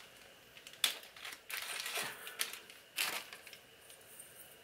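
Hands handling a small jewellery locket, its chain and packaging: a few short rustles and light clicks, about one, two and three seconds in.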